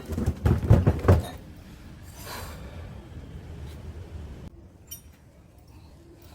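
Parts of a scrapped top-loading washing machine being handled and knocked about while it is taken apart: a quick run of loud knocks and clatter in the first second or so, then quieter handling with a brief scrape and a small click.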